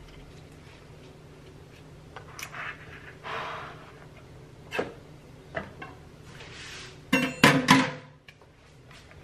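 Hands arranging rocket leaves on a focaccia sandwich on a wooden cutting board: leaf rustling and soft knocks. A louder clatter of knocks with a brief ring comes about seven seconds in. A low hum runs underneath.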